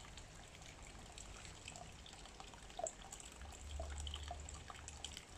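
Boiled beer wort trickling faintly from an electric urn's plastic tap through a stainless mesh strainer into a plastic bucket, with small drips and splashes. A low hum comes in past halfway.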